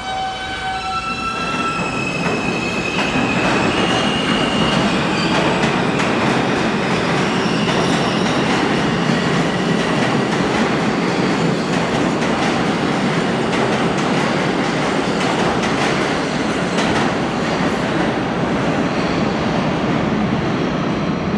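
Subway train pulling out, its motors starting with a whine that climbs in steps over the first second or two, then a loud, steady rumble of wheels on rail as it gathers speed and runs out of the station.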